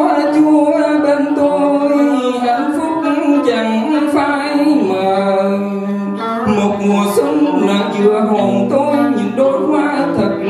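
A man singing into a microphone over instrumental backing music.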